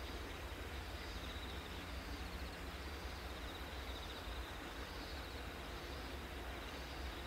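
Rural outdoor ambience: insects chirring in repeated pulsing trills over a steady low rumble.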